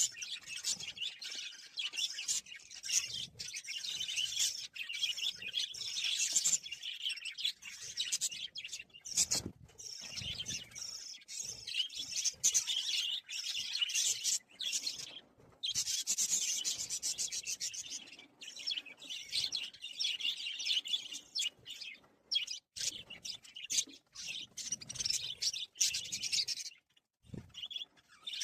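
A flock of budgerigars chattering and chirping almost without let-up, with a few short pauses.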